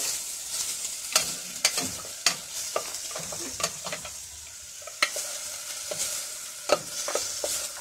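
Wooden spoon stirring diced onion in oil in a stainless steel pot, knocking and scraping irregularly against the pot's side and bottom, over a steady sizzle. The oil is not yet fully hot, by the cook's own account.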